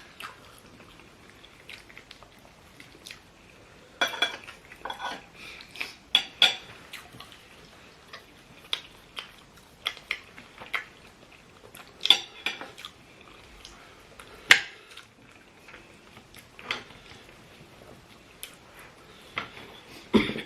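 Cutlery clinking and scraping against plates while people eat, in irregular sharp clinks.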